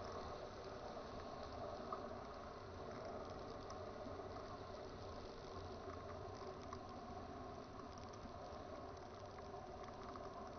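Weight-shift microlight trike's engine running steadily in flight, mixed with rushing wind on the microphone.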